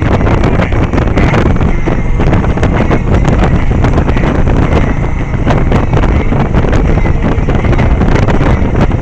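Heavy wind buffeting the microphone on a moving vehicle, a loud rumbling roar that flutters in strength, over the vehicle's running noise.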